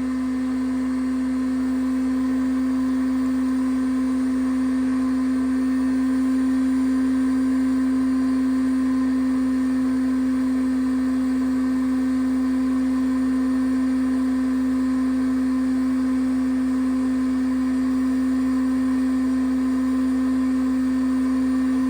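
A machine running steadily with a strong, unchanging hum that holds one pitch over a low background noise.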